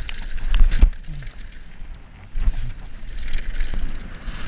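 Mountain bike riding fast down a loose gravel dirt trail: tyres rolling over the stones and the bike rattling and knocking over bumps, with wind buffeting the microphone in a deep rumble that is heaviest in the first second.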